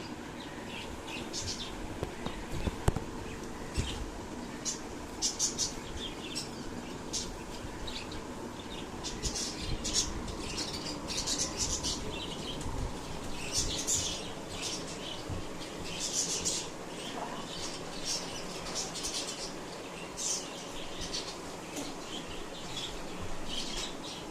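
Short, irregular bursts of rustling and scratching as a German Shepherd paws and nudges at a sleeping person to wake them.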